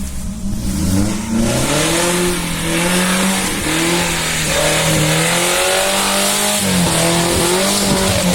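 Suzuki Jimny's swapped-in Toyota Kijang 5K four-cylinder engine revving hard, its pitch rising and falling again and again in surges as the driver works the throttle. From about a second and a half in, a strong rushing noise runs along with it.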